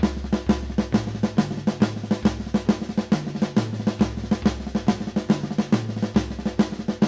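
Drum kit playing the bludger lick: a fast, even run of flammed triplet strokes moving between floor tom and snare, with the right-hand note doubled on the snare, played without a break.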